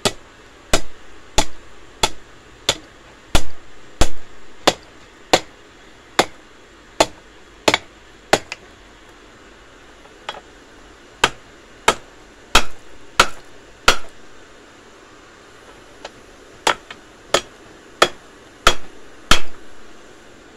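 Hand hammer striking a red-hot steel bar on an anvil while forging a tent peg: sharp ringing clangs about one and a half a second, in three runs broken by short pauses.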